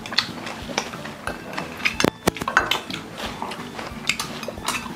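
Metal chopsticks clicking and scraping against small stainless-steel bowls while eating: irregular clinks, with a sharper clack about two seconds in.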